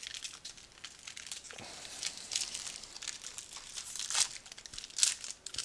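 Crinkling and tearing of a Topps trading-card pack wrapper being opened and handled, with scattered crackles and two sharper rips about four and five seconds in.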